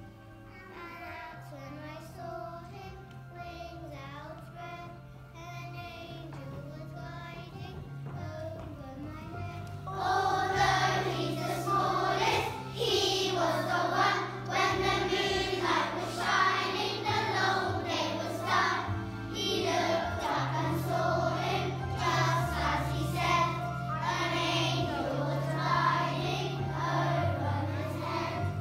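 A group of young children singing a song together over instrumental accompaniment, with a steady bass line under the voices. The singing gets clearly louder about ten seconds in and stays full to the end.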